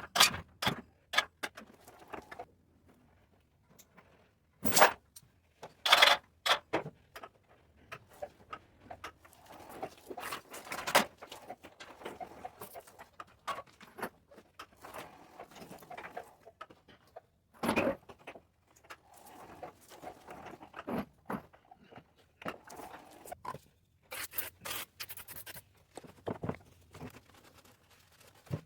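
Irregular clinks, knocks and scraping of hand work on metal wheelchair parts, with a few louder sharp knocks and rustling between them.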